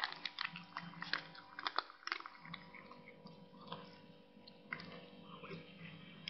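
A cat crunching and chewing on something held in its mouth: a quick run of crisp crunches over the first couple of seconds, then only scattered ones.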